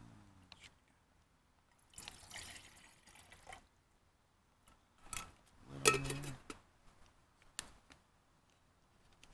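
Water poured from a plastic water bottle into a metal cook-pot lid and tipped out, with splashing and small clinks and handling clicks of the lid and bottle. The loudest moment, about six seconds in, is a cluster of clicks with a short low hum.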